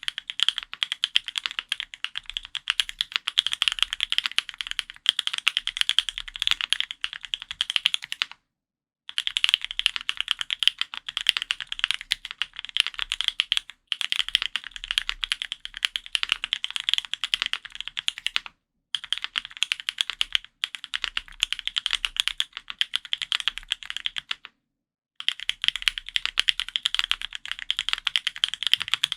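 Typing on an F1-8X custom mechanical keyboard with lubed Gateron Luciola linear switches, GMK keycaps and an aluminium plate. The keystrokes come fast and continuous in long runs, broken by five brief pauses.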